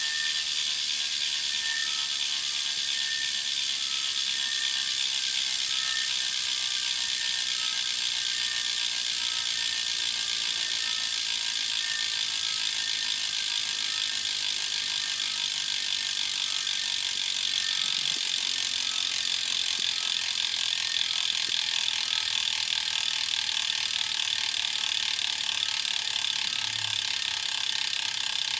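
Black Inc 50 carbon bicycle wheel's hub giving off a steady high-pitched sound, with a faint tick repeating about once a second. The owner suspects a hub defect.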